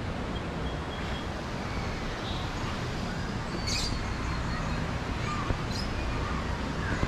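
Outdoor background: a steady low rumble, like wind on the microphone, with a few faint bird chirps and two short sharp high sounds in the middle.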